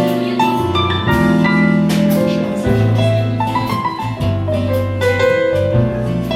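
Instrumental break of a pop song: a piano-like keyboard melody over bass notes and a light steady beat, with no singing.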